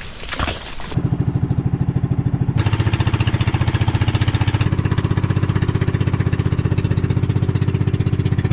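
A small engine starts up abruptly about a second in and runs steadily with a fast, even chug.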